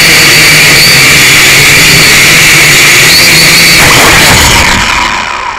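Syma X5C quadcopter's small motors and propellers whining loudly, heard through the drone's own onboard camera. Near the end the sound falls away as the motors wind down and the drone comes down.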